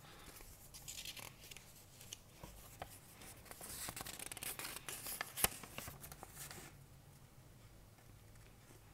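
Paper instruction leaflet rustling as it is handled, with small crinkles and one sharp tap about five and a half seconds in; the rustling stops about two-thirds of the way through.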